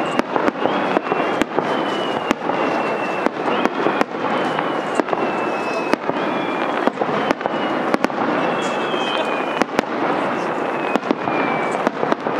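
Aerial firework shells bursting in an irregular rapid series of sharp bangs, sometimes several a second, over a steady noisy background.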